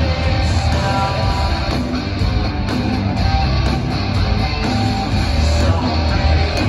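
Hard rock band playing live: electric guitars and bass over drums, with no vocals, heard from the audience in a large hall.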